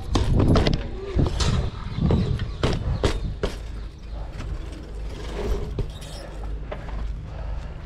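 BMX bike ridden over a concrete skatepark: tyres rolling with a steady rumble, and the bike knocking and clacking several times in the first few seconds as it lands and hits the ground, then lighter rattles as it rolls on.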